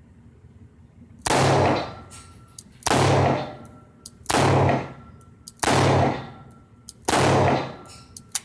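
Five .38 Special shots from a Rossi M88 five-shot snub-nose revolver fired double action, one about every second and a half, each with a short fading echo. Faint clicks of the action come between the shots.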